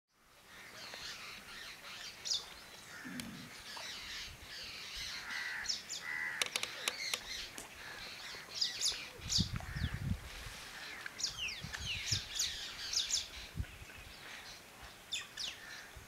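Wild birds calling in a busy chorus: many short chirps and quick calls that slide steeply downward, overlapping one another. A brief low rumble comes a little past the halfway point.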